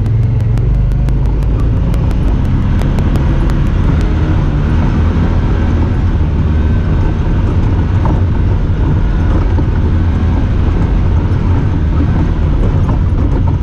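Honda Talon 1000R side-by-side's parallel-twin engine running steadily under way, with drivetrain and ride noise. For the first four seconds a fast regular ticking, about five ticks a second, sits over it and then stops; the uploader puts such odd noises down to the camera.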